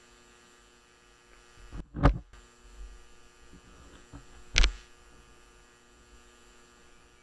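A faint steady electrical hum, broken by two sharp, loud thumps about two and a half seconds apart. The thumps are handling knocks as the rider climbs onto his motorcycle.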